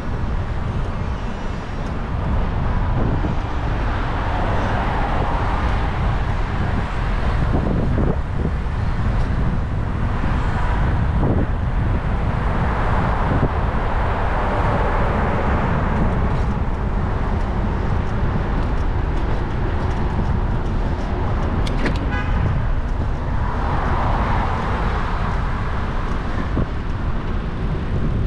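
Road traffic heard from a moving bicycle: cars pass in the adjacent lanes, their tyre and engine noise swelling up and fading several times, over a steady low rumble of wind on the microphone.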